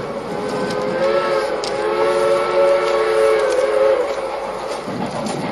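Union Pacific 838's three-chime steam whistle, sounded in one long blast: a chord of a few steady tones that starts about half a second in and cuts off after about three and a half seconds.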